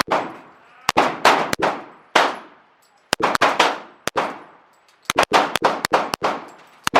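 Rapid string of gunshots, about fifteen in seven seconds at uneven spacing, some in quick pairs, each with a long echoing tail.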